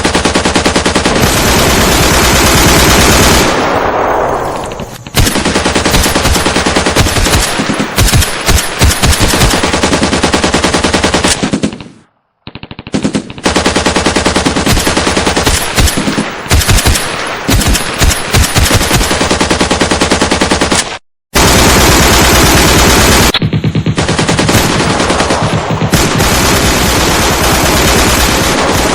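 Machine-gun fire in long, rapid automatic bursts. The firing stops dead twice, about 12 and 21 seconds in, and starts again straight away.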